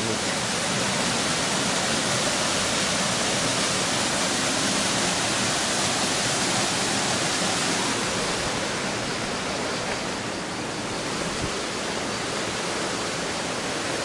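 Steady rush of a narrow waterfall plunging into a rock-walled pool, a dense, even hiss.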